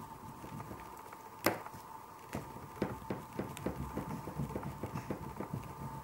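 Oil pastel stick scratching across paper in short quick strokes, about three or four a second, after a single sharp tick about a second and a half in (the loudest sound). A steady faint high tone runs underneath.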